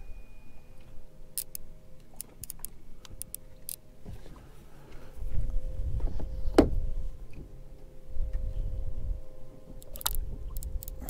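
Light clicks and knocks of fishing tackle being handled on a boat: a conventional reel and gear on the deck. They come in two clusters, over a low rumble.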